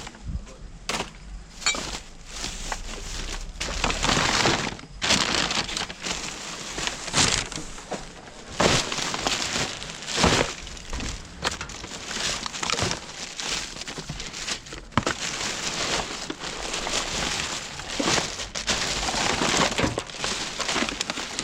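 Hands rummaging through a bag of rubbish: plastic bag rustling and crinkling, with irregular knocks and crackles of the contents being moved.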